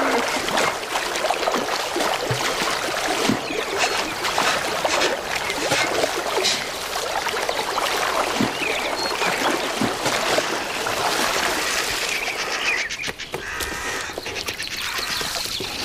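Water splashing and sloshing as a brown bear cub bounds through a shallow river, a dense run of splashes.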